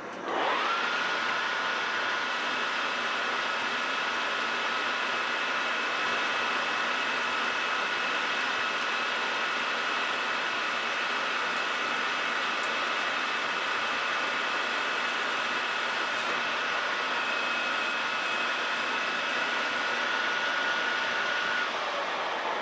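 Metal lathe spindle spinning up with a quickly rising whine, then running at a steady pitch at 800 RPM while a carbide insert turns a steel bar, with a steady hiss of cutting and spinning. Near the end the whine stops and the sound falls away as the spindle winds down.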